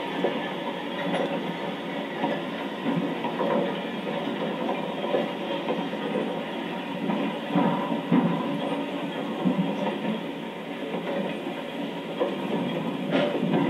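Freight cars and a caboose rolling slowly past on the rails: steady wheel-on-rail noise with a few sharper clanks, the loudest near the end.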